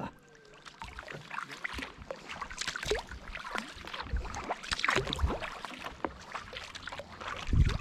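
Kayak paddle strokes in calm water: the blades dip and pull, with an irregular run of small splashes and drips. A louder low bump comes near the end.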